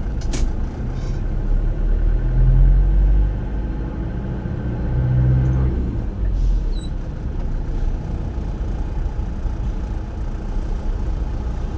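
Low, steady road and engine rumble of slow-moving traffic heard from inside a car's cabin, swelling twice in the first half.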